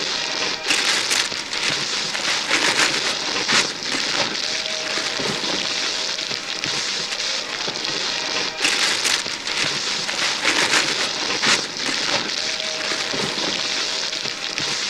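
Wrapping paper being torn and crumpled by several pairs of hands: quick sharp rips over a continuous rustle. The same run of tearing repeats about every seven seconds.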